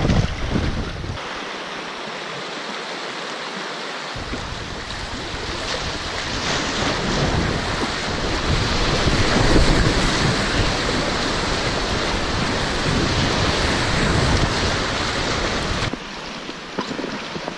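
Rushing river water around a packraft, with wind buffeting the microphone. The water grows loudest through the middle as the raft runs white water, then drops suddenly to a quieter flow near the end.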